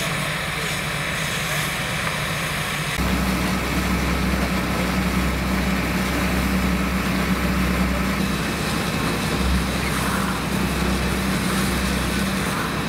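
Fire hose jets spraying water onto a burning tractor wreck, with steady hissing spray and steam. About three seconds in, the sound changes abruptly and a steady low engine drone from the fire engine's pump joins the hiss.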